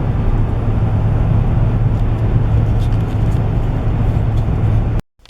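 Car interior road noise at highway speed: a steady drone of tyres and engine with a strong low hum, cutting off abruptly about five seconds in.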